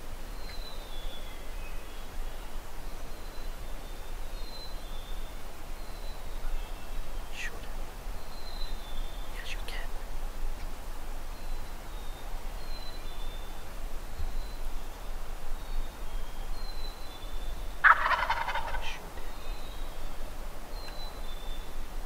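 A wild turkey gobbler gobbles once, loud and rapid, about three-quarters of the way through, lasting about a second. Faint short high chirps repeat in the background throughout.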